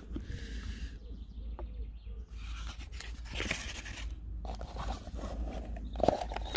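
Hands handling packaging: a foam insert and a cardboard box with its inner tray rustling and scraping, with scattered light clicks and a louder knock near the end, over a steady low rumble.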